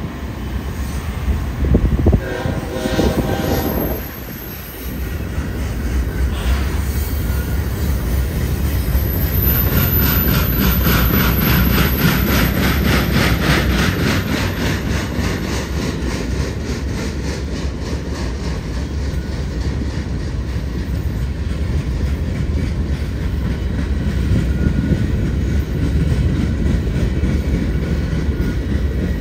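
Freight train passing: the diesel locomotive's horn sounds briefly about two seconds in, then a steady low rumble of the locomotives and rolling cars, with a fast rhythmic clacking of wheels over the rail joints as the cars go by.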